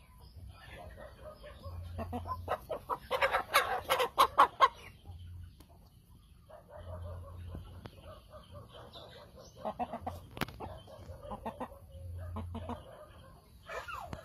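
Animal calls: a loud, rapid run of short calls about two seconds in that lasts a couple of seconds, then scattered quieter calls.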